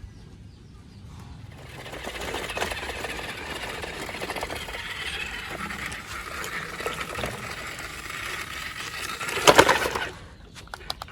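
Toy RC construction vehicle's small electric motor and plastic gears whirring and rattling. A loud clatter comes about nine and a half seconds in.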